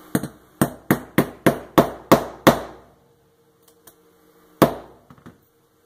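Metal snap-setting punch struck repeatedly on its anvil, rolling over and setting a leather snap: eight sharp blows about three a second, then a single last blow about two seconds later.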